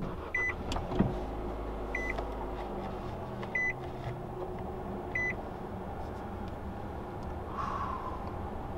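Car engine cold-started: it catches with a sharp burst about a second in and settles into a steady idle. A dashboard chime beeps four times at even intervals meanwhile.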